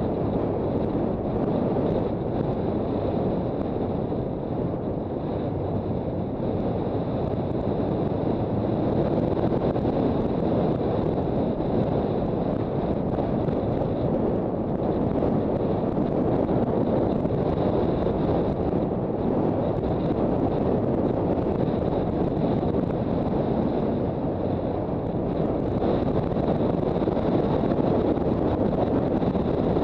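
Steady wind noise rushing over the microphone of a Honda CB400 Super Bold'or motorcycle under way on the road.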